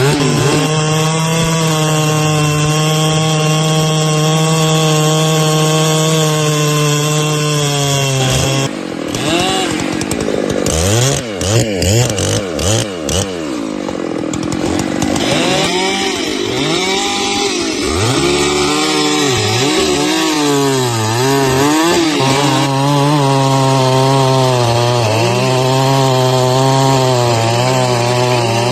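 Gasoline chainsaw engine running at high speed, holding a steady pitch for about eight seconds. Through the middle it revs up and down repeatedly, then settles back to a steady high-speed run near the end.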